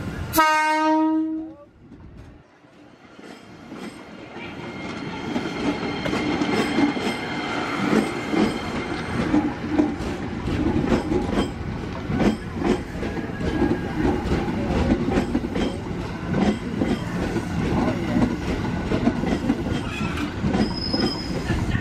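A train horn sounds once at the start, a single steady tone about a second long. After a brief lull, a JR 205 series electric commuter train rolls past close by, its wheels clattering over the rail joints, the rolling noise building over the next few seconds.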